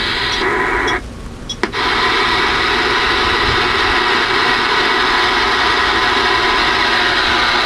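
Ranger RHF-618 CB radio's speaker putting out loud, steady static on AM channel 19. The static cuts out briefly about a second in and comes back with a click.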